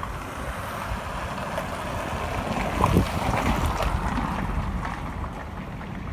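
Wind buffeting the microphone, a steady low rumbling hiss, with a brief knock about three seconds in.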